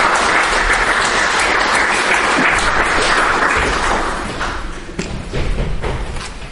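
An audience applauding, which dies away about four and a half seconds in, leaving a few scattered knocks.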